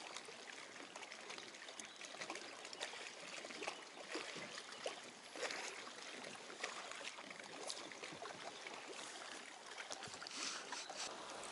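Small waves lapping against a concrete lakeshore embankment: a steady wash of water with irregular little splashes and slaps.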